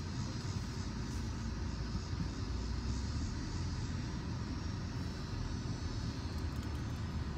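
Steady road and wind noise inside a moving car with the driver's window down, a constant low rumble under a rushing hiss.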